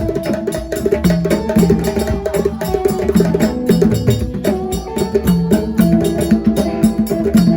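Music driven by fast, steady percussion, with held melodic notes that shift in pitch over the beat.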